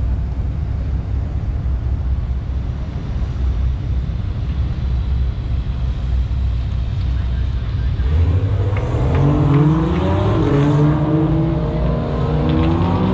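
A steady low rumble, then from about eight seconds in race car engines revving up and down as cars go by, more than one engine heard at once.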